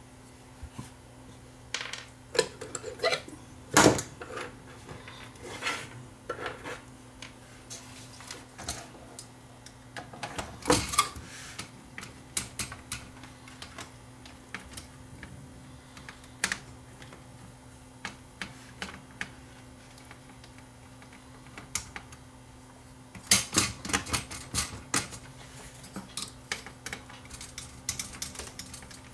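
Irregular clicks and taps of a screwdriver and small metal and plastic parts on a VCR's chassis and tape mechanism as the front loading assembly is being taken off. A quick run of clicks comes near the end.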